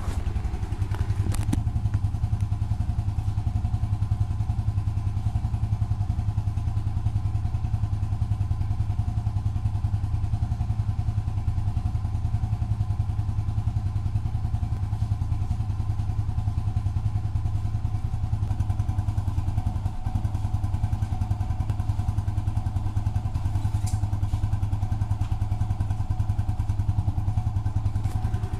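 Motorcycle engine idling steadily, a low even rumble with a rapid regular pulse.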